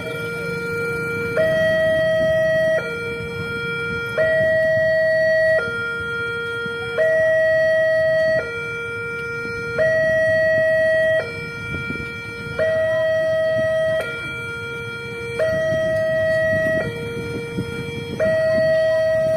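Railway level-crossing warning siren sounding a steady two-tone alternation: a higher tone and a lower tone take turns, each held for about a second and a half, the higher one louder. It is the crossing's warning that a train is approaching and the gates are closing.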